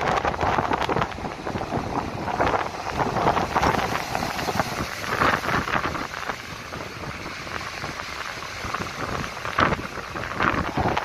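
Rough sea surf washing in and breaking over a shore of stacked stone blocks, a steady rushing hiss, with strong wind buffeting the microphone.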